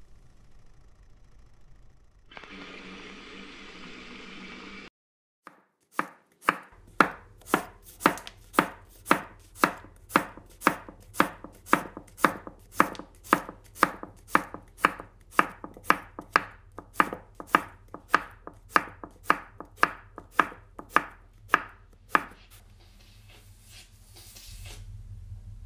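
Kitchen knife chopping a courgette on a wooden cutting board: a steady run of sharp strokes, just under two a second, for about sixteen seconds.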